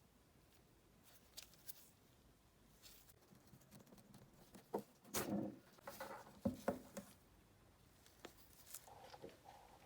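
Light, scattered clicks, taps and rustles of small parts and tools being handled, with a louder run of knocks a little past halfway.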